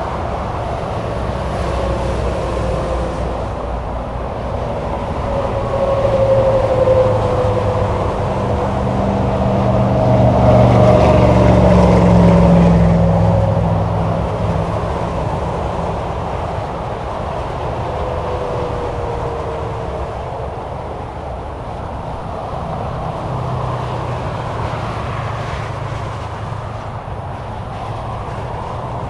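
Steady highway traffic: tyres hissing and engines running as vehicles pass one after another. A heavy vehicle's deep engine rumble swells to the loudest point about ten to thirteen seconds in, then fades, and faint tyre whines fall in pitch as cars go by.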